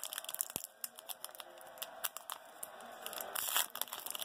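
Foil wrapper of a trading card pack crinkling as it is handled and stood on a wooden table. Scattered small clicks, with one soft knock about half a second in and denser crinkling near the end.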